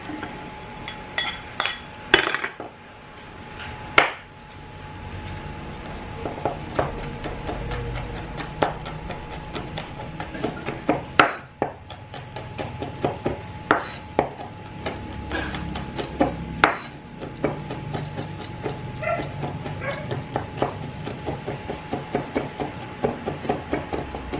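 Kitchen knife knocking on a wooden chopping board as garlic cloves are crushed and chopped: a few hard, separate knocks in the first four seconds, then quick, uneven chopping strokes as the garlic is minced.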